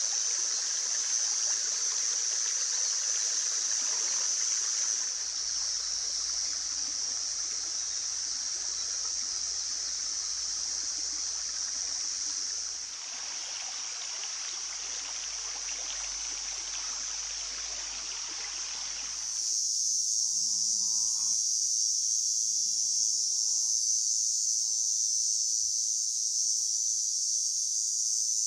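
A shallow forest stream babbling over pebbles, with a steady high insect chirring over it. About 19 seconds in the water sound stops abruptly, leaving the insects and a few faint rustles.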